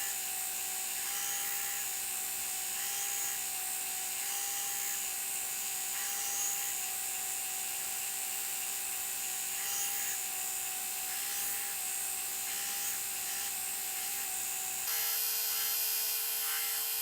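Steady abrasive hiss of a power tool working the knife, with a faint steady hum underneath; the sound shifts slightly in tone near the end.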